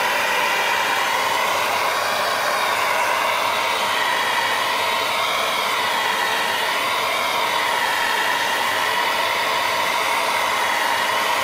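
Hand-held gas torch burning with a loud, steady rushing hiss, its flame played against a cast-iron compressor casing to heat it; the tone shifts slightly now and then.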